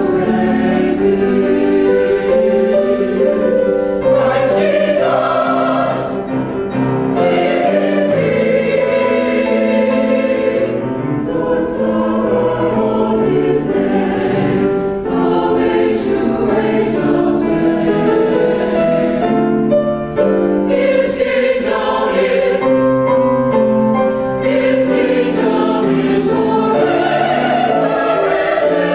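Church choir singing in harmony, several voices holding chords that change every second or so.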